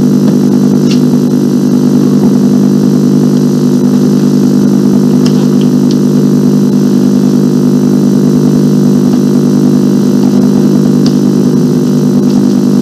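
A loud, steady low hum made of several stacked tones, unchanging throughout, like an engine idling.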